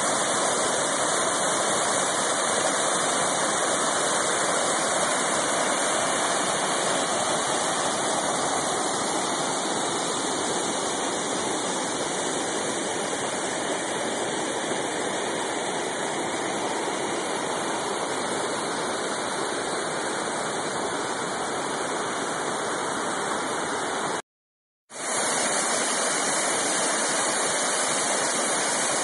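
A waterfall's rushing water, a steady, dense roar. About 24 s in it cuts out for half a second, then the rush of another falls comes back.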